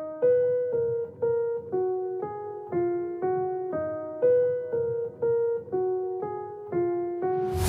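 Background music: a quiet, simple piano melody of single notes, about two a second, each fading away, as a breakdown within an electronic track.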